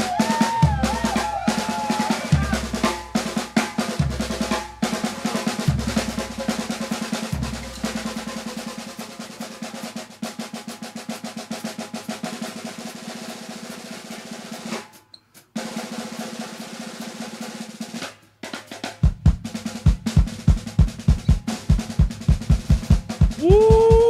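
Drum kit played live in a jazz band's drum feature: busy snare rolls and cymbal hits over bass notes that stop about eight seconds in. After two short breaks, the kick drum takes up a steady pulse of about four beats a second, and a long held note comes in near the end.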